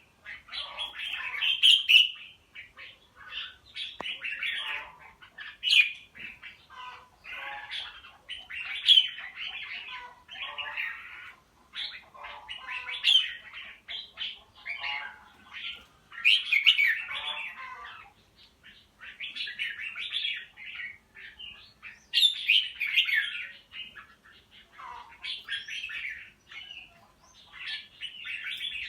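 A songbird singing in chirping phrases of one to two seconds, one after another with short pauses.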